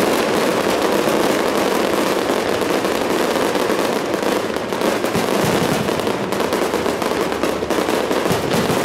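Fireworks display: a dense, unbroken barrage of many shells and crackling stars going off in rapid succession.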